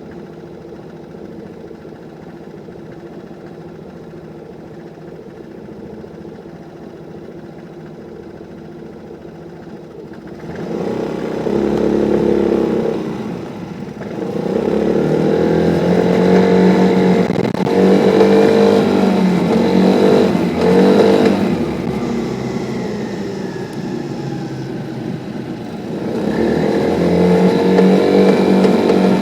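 Vespa scooter engine running steadily, then revved up several times from about ten seconds in, pitch rising and falling with each burst. The owner says the engine knocks (pinks) under acceleration.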